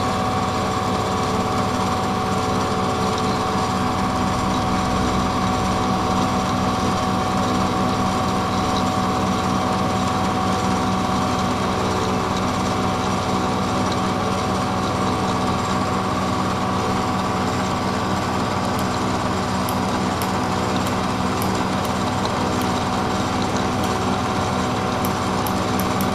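CNC-retrofitted Bridgeport milling machine making an end-mill cut in a metal plate: a steady machine hum with several constant tones over the noise of the cut. A few faint ticks come in the later part.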